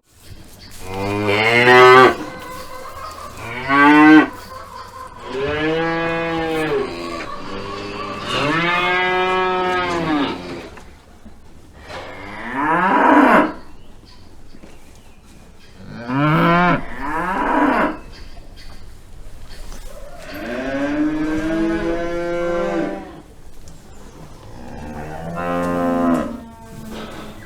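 Cattle mooing: about eight separate moos of one to three seconds each, spaced a second or more apart, several of them rising and then falling in pitch.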